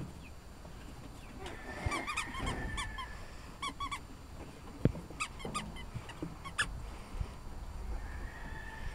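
Young puppies squeaking and yelping in short, high-pitched runs, with a couple of longer held whines, and a few dull knocks.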